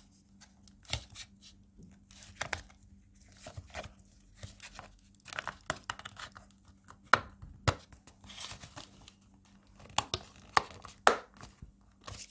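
Hard plastic housing of a mains hook-up cable connector being pushed and turned back together over its wired terminals: irregular plastic clicks and knocks with some rustling, the sharpest knocks a little past the middle and again near the end.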